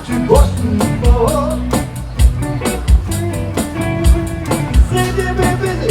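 A live band plays an instrumental passage with guitar and a drum kit keeping a steady beat.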